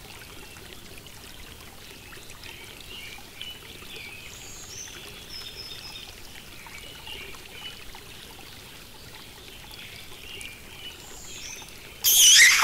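Garden ambience sound effect: birds chirping over a steady hiss. Near the end a short, loud hissing burst cuts in.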